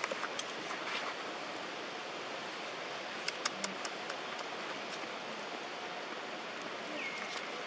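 Steady outdoor background hiss, with a few faint clicks about half a second in and around three and a half seconds in, and a short faint squeak near the end.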